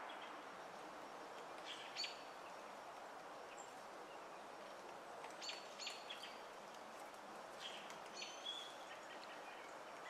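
A hairy woodpecker making a few short, sharp, high sounds: one about two seconds in, a pair near the middle, and a few more near the end. They carry over a faint, steady outdoor background hiss.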